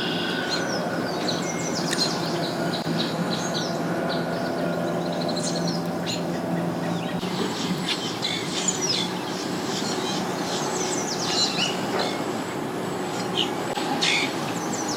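Birds chirping with many short, quick calls over a steady low engine hum, which thins out about halfway through.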